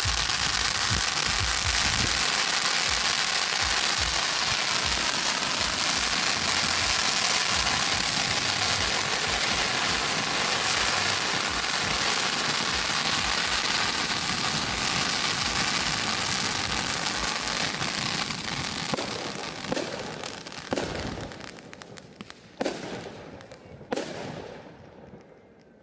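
Fireworks display: a loud, dense, continuous crackling with low booms in the first couple of seconds. The crackle dies away after about eighteen seconds, leaving a few separate bangs near the end.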